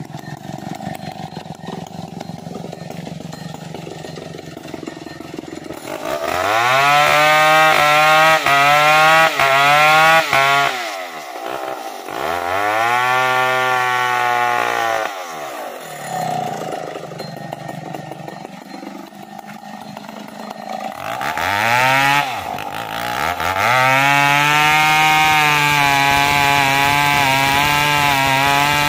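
Two-stroke chainsaw idling, then revved to full throttle twice for a few seconds each, dropping back to idle between. It revs up again about two-thirds of the way in and is held at full throttle, cutting into the base of a standing tree trunk.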